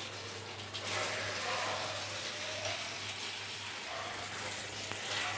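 Chili chicken in its sauce and cornflour slurry sizzling steadily in a pan as it is stirred.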